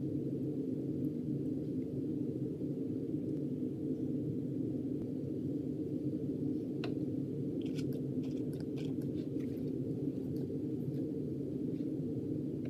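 A steady low hum made of several held tones, with a few faint clicks and taps in the second half as the plastic foaming-soap bottle is shaken and pumped.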